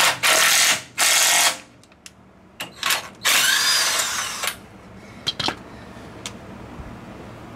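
Cordless impact wrench running a steering-gear mounting bolt into the frame in short bursts of hammering: two bursts in the first second and a half, then a longer one from about three to four and a half seconds in. A few light clicks follow near the end.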